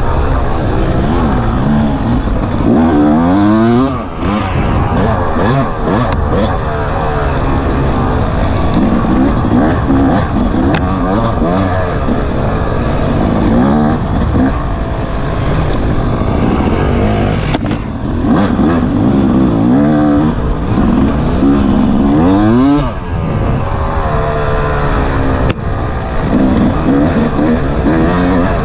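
Dirt bike engine running hard under way, its revs rising and falling with throttle and gear changes, with a few brief drops where the throttle is rolled off.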